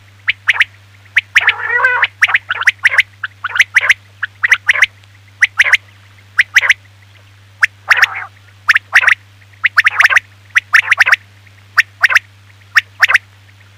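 Quail calling: quick, sharp notes repeated in groups of two and three, with lower grating calls about two seconds and eight seconds in, over a steady low hum. This is the kind of call recording played to lure quail when hunting.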